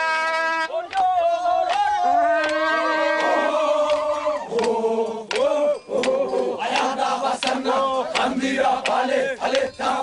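A group of voices chanting and singing, with sharp percussive strikes, following a long held note at the start.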